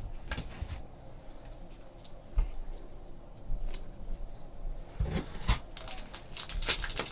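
Trading cards being handled and slid against one another: soft, scattered clicks and rustles, with a few louder rustles about five seconds in and again near the end.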